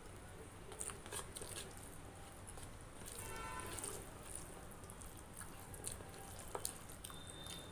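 Faint close-miked eating sounds: wet chewing and small mouth clicks, with fingers squishing and mixing rice and curry on a plate.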